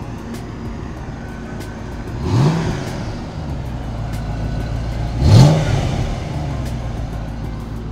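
1994 Chevrolet Corvette's 5.7-litre LT1 V8 idling, revved twice with short throttle blips about two and five seconds in, the second rev the louder.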